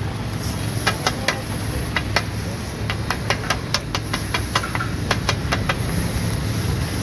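Metal cooking utensil striking a pan or griddle in a quick, irregular run of clinks while the egg keema is cooked, over a steady hiss and low rumble.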